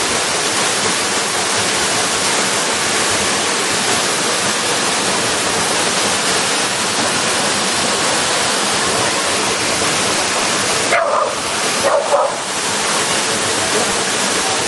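Waterfall pouring steadily, a dense rush of falling water. Near the end the rush briefly turns duller, and two short high yelps sound about a second apart.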